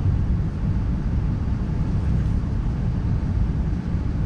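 Steady low rumble of cabin noise inside an Airbus A380 on the ground before takeoff, with its engines running.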